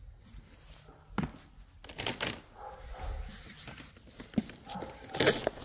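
Several knocks and thuds, the loudest about five seconds in, with faint low voices between them.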